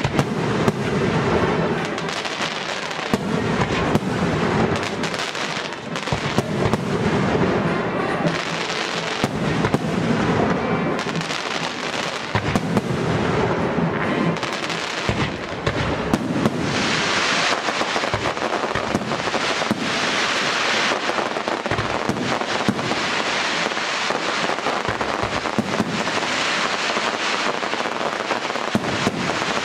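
Fireworks display: aerial shells bursting in quick succession, a continuous barrage of bangs and crackling. The crackling grows denser about halfway through.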